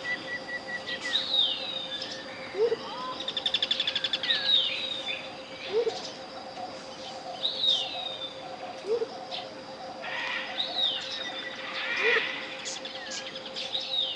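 Tropical jungle birdsong: repeated falling whistled calls, a rapid trill about three to four seconds in, and a short low note coming back about every three seconds. Under it runs a steady 528 Hz pure tone.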